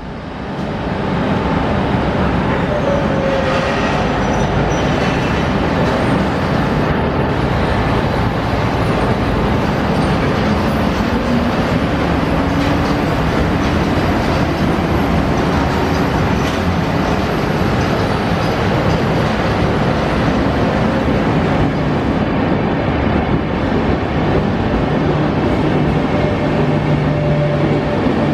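SBB Class 421 (Re 4/4 II) electric locomotive pulling a passenger train away from the platform and past, its running noise steady, followed by the coaches rolling by on the rails.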